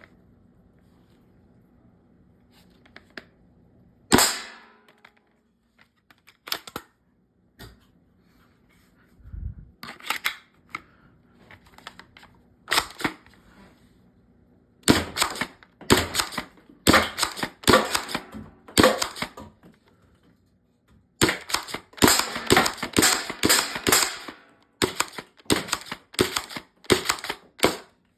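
Worker Seagull foam dart blaster with a weak spring and short barrel, being handled and reloaded: one loud sharp snap about four seconds in, then scattered clicks and, in the second half, dense clusters of quick plastic clicks and clacks.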